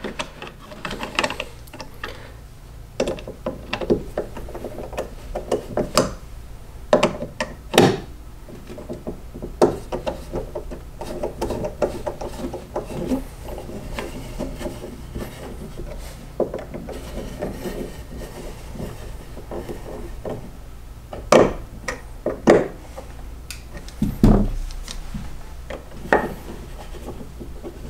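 Small screwdriver turning the screws of a light-switch cover plate: scraping of the driver in the screw heads, with scattered sharp clicks and knocks as the plate and tool are handled against the wall.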